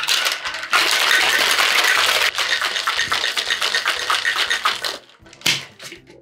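Ice rattling inside a metal Boston shaker as a cocktail is shaken hard for about four seconds, then stopping. One short knock follows near the end.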